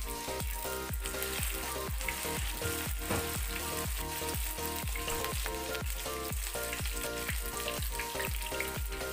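Banana-blossom fritter batter (ukoy) sizzling as it fries in hot oil in a frying pan, with a steady frying hiss. Background music with a steady beat plays under it.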